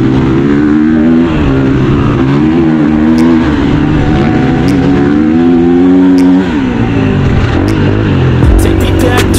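KTM 350 EXC-F single-cylinder four-stroke enduro engine revving up and down under hard riding, the throttle opening and closing every second or two. It eases off to a lower note about six seconds in.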